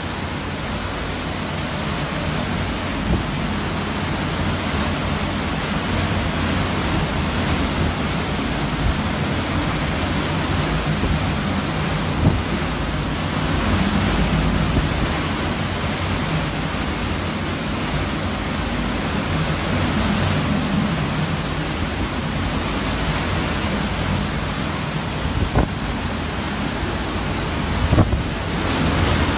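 Hurricane-force wind with driving rain blowing steadily and swelling in gusts, with a few brief knocks near the middle and end.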